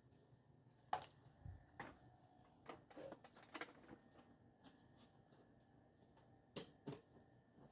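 Faint, scattered taps and clicks over near silence, a quick cluster of them about three seconds in: fingertips tapping a Samsung Galaxy Note 9's touchscreen to enter its unlock code.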